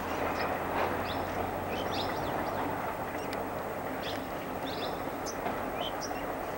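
Distant passenger train running along the hillside, a steady even rumble, with birds giving short high chirps over it again and again.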